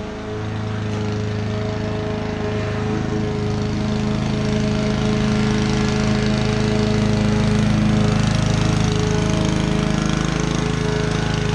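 Honda HRU216D self-propelled lawn mower's four-stroke engine running steadily while mowing, growing louder as the mower comes closer.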